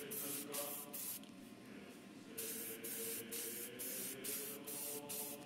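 Paint being sprayed onto plastic model car parts in short hissing bursts, about ten of them with a pause of about a second early on, over a steady hum.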